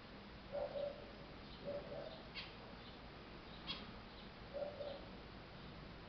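Caged zebra finches calling: short nasal beeps about half a second in, near two seconds and near five seconds, with two brief sharp high sounds in between.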